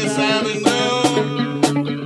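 Live acoustic guitar music with a steady drum beat under the strummed chords.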